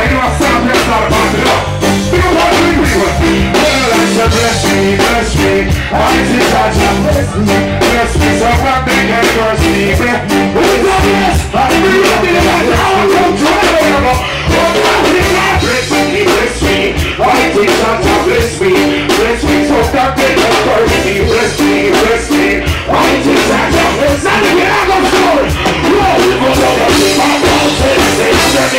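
Live reggae band playing, with electric guitar, drum kit and keyboards, while a male vocalist sings into a microphone over it.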